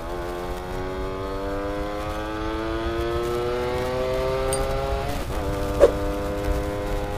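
Yamaha F1ZR's two-stroke single-cylinder engine pulling hard under a rider and pillion passenger, its note rising steadily for about five seconds. It then drops abruptly, as at a gear change, and a brief sharp crack follows just after. The bike is straining under the passenger's weight, in the rider's words.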